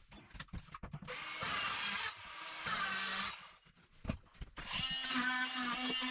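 Power tool cutting an opening for the shower waste pipe, running in two bursts of about two seconds each with a pause and a few knocks between them.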